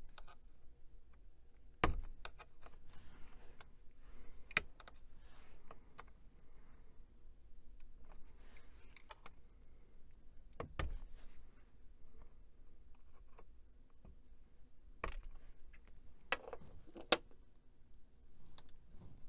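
Hands and tools working on the insides of an old computer during disassembly: scattered clicks and knocks of plastic and metal parts with soft scraping and rustling between them. About six sharper knocks, the loudest about two seconds in.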